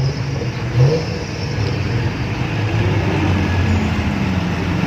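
A motor vehicle's engine running under load, its pitch rising slowly through the second half, with a short loud burst about a second in.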